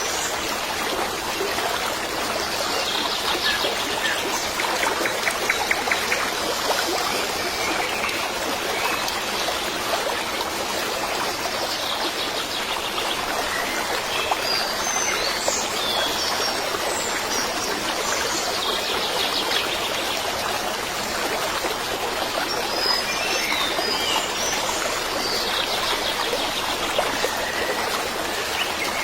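Running stream water with small birds chirping now and then.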